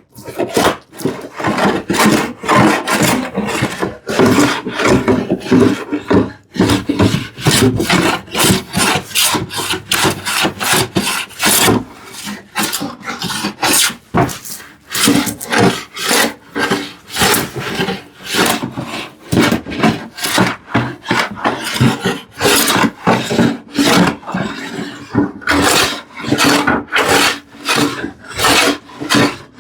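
A large metal-bodied bench plane taking repeated quick strokes across a wooden panel, shaving wood as it flattens uneven areas and glue lines, working across the grain. The strokes come in a steady, rasping rhythm of about one or two a second.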